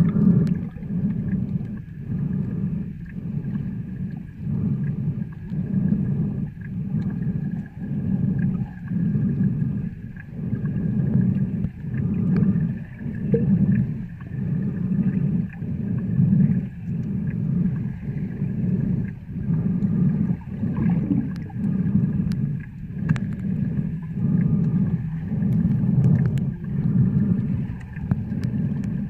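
Muffled underwater water noise picked up by a camera held below the surface while snorkeling, a low rumble that surges about once a second, with faint scattered clicks.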